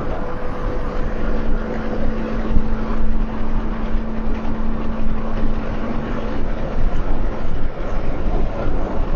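Steady road and engine noise inside a moving car, with a faint steady hum from about a second in until past six seconds.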